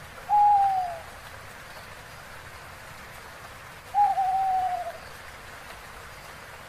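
An owl hooting twice, two clear, slightly falling hoots about three and a half seconds apart, over a faint steady hiss.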